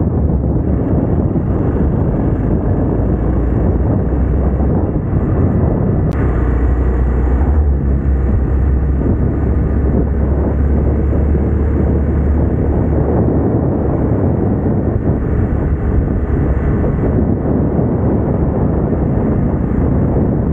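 Hero Xpulse 200T motorcycle running on the move, its single-cylinder engine under a steady rush of wind over the camera microphone. A sharp click about six seconds in, after which the low rumble is stronger for several seconds.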